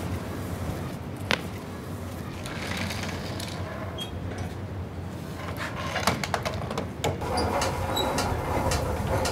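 Clicks, knocks and clatter of a window cleaner's water hose being dragged and stowed among hose reels in the back of a van, over a steady low hum; the knocks are thickest about six to seven and a half seconds in.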